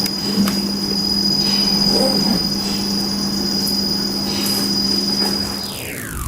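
Servo motor driven by an Okuma BDU-50A servo drive unit under test, running with a steady high whine over a low hum, then spinning down near the end with a whine falling quickly in pitch.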